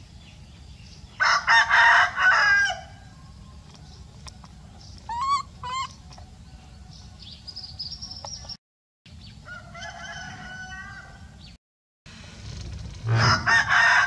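Rooster crowing twice, once about a second in and again near the end, each crow about a second and a half long. Fainter, higher calls come in between.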